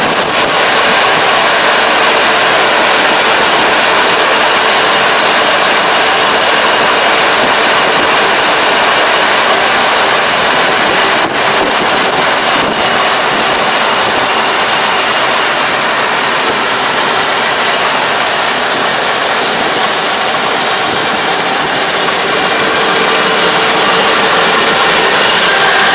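Kubota DR575 five-row rice combine harvester running under load as it cuts and threshes standing rice. The diesel engine and threshing gear make a steady, dense mechanical drone with faint steady whines in it, growing slightly louder near the end as the machine nears.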